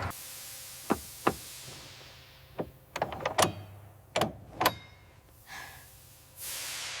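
Bulldozer mirror mounts being adjusted and tightened: a series of about eight sharp clicks and knocks. A hiss fades at the start, and another swells up near the end.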